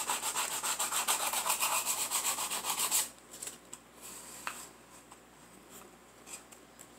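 Folded sandpaper rubbed by hand in quick, even strokes along the edge of a small wooden dollhouse stove piece, stopping abruptly about three seconds in. After that come only faint taps and rustling as the piece is handled.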